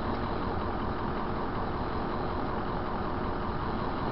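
Steady hum of a car engine idling, heard from inside the stopped car through a dashcam microphone.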